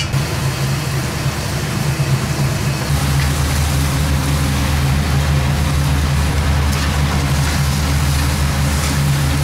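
A steady, low machine hum that gets somewhat fuller about three seconds in.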